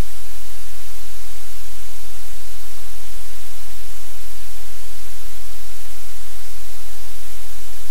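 Loud, steady static hiss with a low rumble underneath, masking any other sound.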